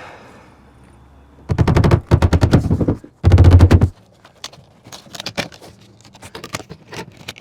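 Power tool driving fasteners while F channel is put up under the eaves: two loud, rapid rattling bursts about a second each, then scattered lighter clicks and taps.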